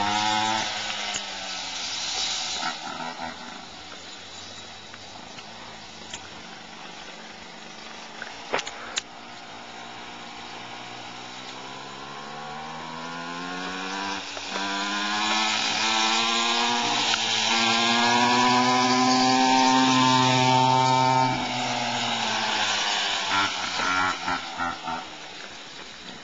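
An engine running, its pitch climbing slowly from about halfway in and holding high at its loudest before it drops away near the end. A few sharp clicks come about a third of the way in.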